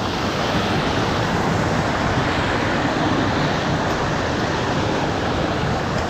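Mountain stream rushing over rocks and small cascades, a steady, even rushing noise.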